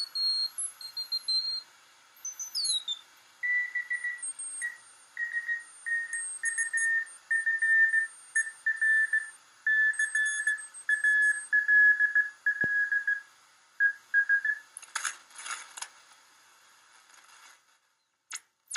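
Morse code (CW) signal coming through a 4SQRP Ozark Patrol regenerative receiver: a high beat-note tone keyed on and off in dots and dashes, its pitch easing slightly lower as it goes. Near the start a higher keyed tone and a gliding whistle are heard, and static crackles come near the end.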